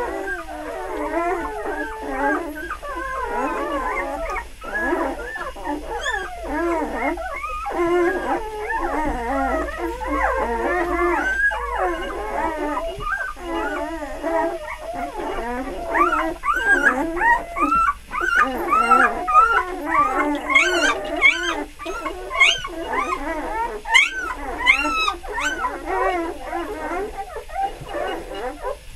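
A litter of three-day-old puppies squeaking and whining nonstop as they nurse, many short high cries overlapping. From about halfway through the cries get louder and shriller.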